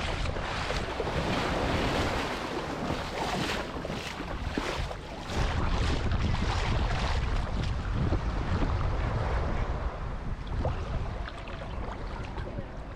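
Surf washing onto a sandy beach, with wind buffeting the microphone; a heavy low wind rumble sets in about five seconds in.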